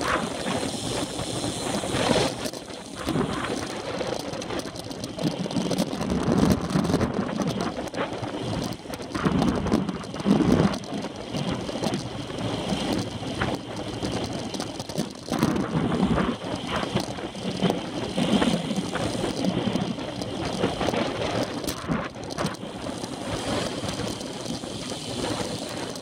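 Wind buffeting the microphone of a handlebar-mounted camera on a road bike ridden at speed, in uneven gusting surges, over the hiss of tyres on asphalt.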